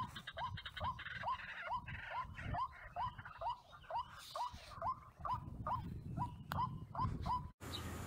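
White-breasted waterhen (burung ruak) calling: a steady series of short upward-sliding notes, about two or three a second, over a low rumble. The calls cut off abruptly near the end.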